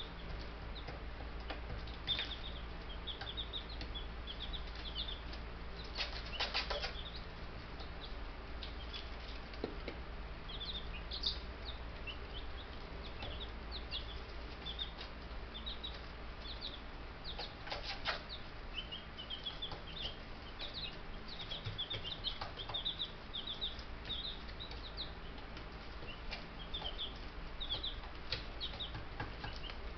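Baby Buff Brahma chicks peeping, many short high cheeps one after another throughout, with a couple of brief rustles of wings or bedding.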